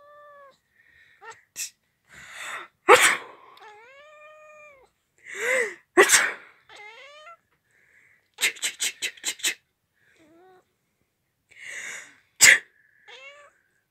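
A person sneezes loudly three times, and right after each sneeze a cat answers with a short meow that rises and falls in pitch. Between the second and third sneezes comes a quick run of six short sharp bursts.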